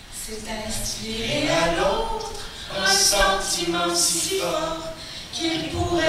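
A small group of men and women singing together with long held notes, the pitch sliding upward about a second in.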